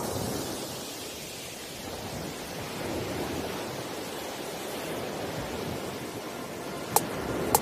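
A steady hiss of noise in a quiet break of an electronic trap remix, with two short sharp clicks near the end.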